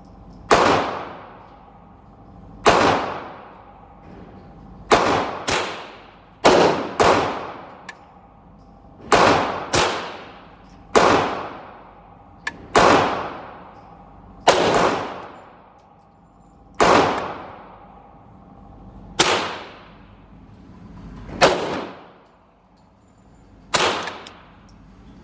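Smith & Wesson M&P15-22 semi-automatic .22 LR rifle firing single shots a second or two apart, sometimes two in quick succession, about fifteen in all. Each shot leaves a ringing echo tail that dies away within about a second, from the enclosed indoor range.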